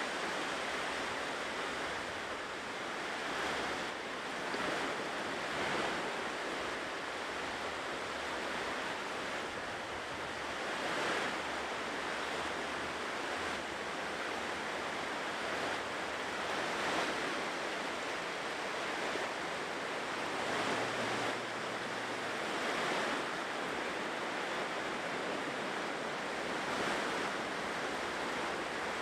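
Ocean surf washing onto a shore: a steady wash of noise that swells a little as waves break every few seconds.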